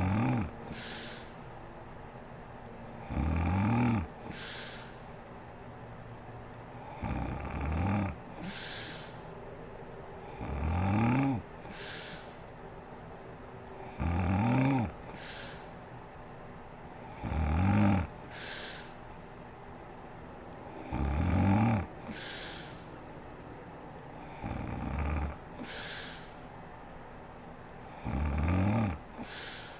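A sleeping woman snoring steadily, about nine times, roughly every three and a half seconds. Each breath in is a loud, low snore that rises in pitch, followed by a short breathy exhale.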